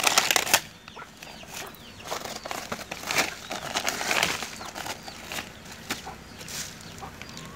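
Woven plastic feed sacks rustling and wire-mesh cage traps rattling as they are handled. The rustle is loudest in the first half second, then thins to scattered light clicks and crinkles.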